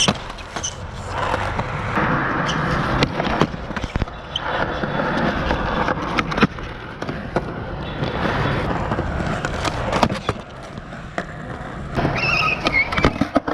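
Skateboard wheels rolling over a rough concrete court in stretches, broken by several sharp clacks of the board popping and landing. A short high squeak sounds near the end.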